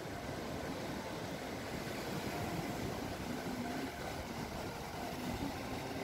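Atlantic Ocean surf: waves breaking and washing on the shore as a steady rushing sound.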